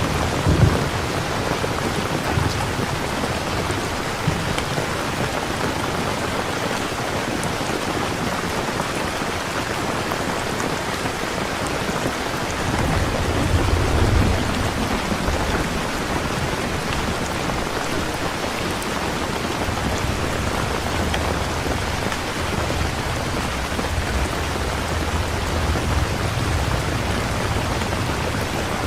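Steady heavy rain falling as an ambient sound track, with low rolling thunder rumbling about halfway through and again near the end.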